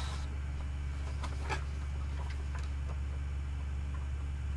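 Paper and packaging handled: a few short rustles and light taps over a steady low electrical hum.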